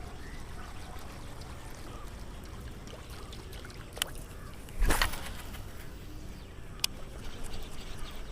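Water lapping and sloshing around a small boat, with a short splash-like noise about five seconds in and a couple of sharp clicks either side of it.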